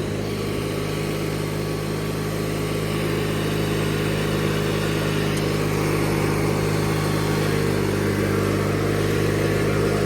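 Engine of a 1997 MTD Yard Machines riding lawnmower running steadily and loud while the mower is driven, getting slightly louder toward the end.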